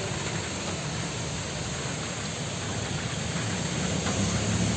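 Heavy rain falling steadily onto a flooded street, a continuous hiss of rain on standing water. A low engine hum from passing traffic grows stronger near the end.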